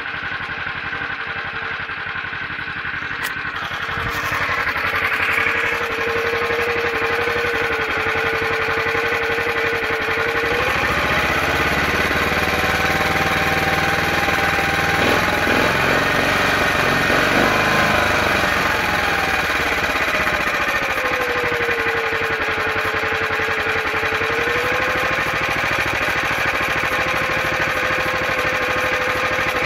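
Motor Sich walk-behind tractor engine idling steadily, then revved up about ten seconds in, held at higher speed for several seconds, and eased back down to idle.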